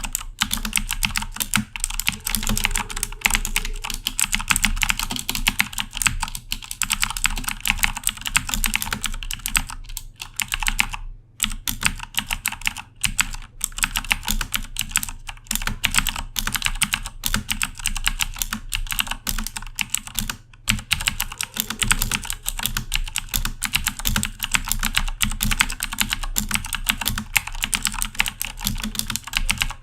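Fast continuous typing on a Corsair K70 mechanical keyboard with Cherry MX Blue switches: a dense stream of sharp clicky keystrokes, with brief pauses about eleven, thirteen and twenty seconds in.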